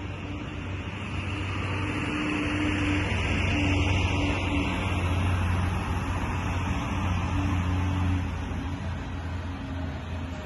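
An engine running with a low hum and noise, getting louder through the middle and easing off near the end, like a motor vehicle going by.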